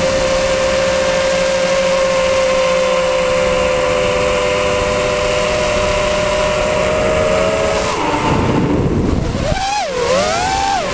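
FPV quadcopter's electric motors and propellers whining at one steady pitch, recorded by the GoPro mounted on the drone. About eight seconds in the whine drops away under a rush of low noise, then swings up and down in pitch as the throttle is pushed and eased.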